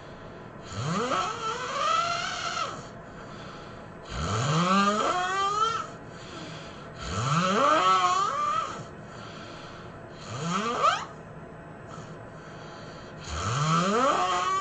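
A person snoring heavily: five long, loud snores about every three seconds, each rising in pitch as it goes.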